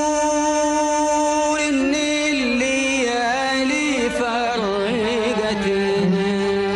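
Male voice singing in Arabic tarab style: one long held note, then about a second and a half in a wavering, ornamented melisma that slides down in pitch and settles on a lower held note near the end.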